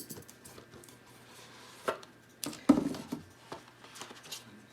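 Hands handling and opening a phone's retail box and packaging: scattered clicks, taps and short rustles, with the busiest, loudest handling about halfway through.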